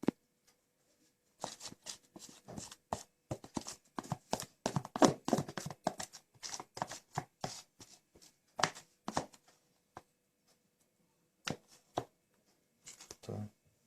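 A spoon scraping and tapping against a bowl and baking tin as thick cake batter is spooned out and laid in, in a run of irregular clicks and scrapes that thins out after about nine seconds to a few taps.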